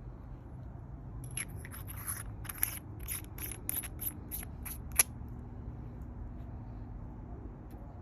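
Aluminum lighter capsule being handled: about a dozen quick, high scraping strokes, then a single sharp click about five seconds in.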